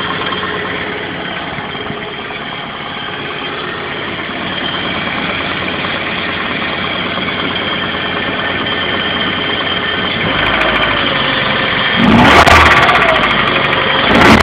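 Toyota MR2's engine idling steadily, then blipped twice near the end. It makes a horrible noise that the owner cannot identify.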